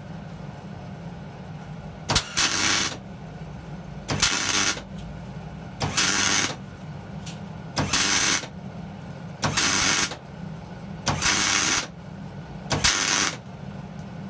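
MIG welder arc struck in short jabs: seven crackling bursts, each about half a second long and coming every second and a half to two seconds, as the welding current pulses through a coil of wire to recharge a Ford Model T magneto magnet. The welder's cooling fan hums steadily underneath.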